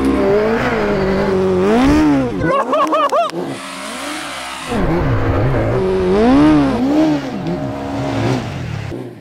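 Engines of a modified Suzuki GSX-R1000 superbike and a Polaris RZR off-road buggy at full throttle in an uphill drag race. Their pitch repeatedly climbs and drops as they rev and shift, with quick high swoops about three seconds in and again around six to seven seconds.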